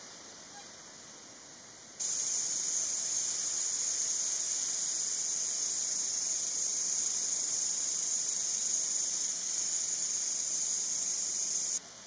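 Steady high-pitched buzzing hiss of night insects. It starts suddenly about two seconds in and cuts off just as suddenly near the end.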